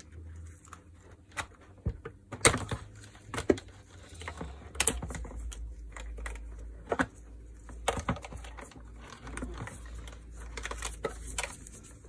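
Irregular sharp clicks and small rattles of gloved hands working a screwdriver and wire connectors at the terminal block inside a vacuum cleaner's plastic housing.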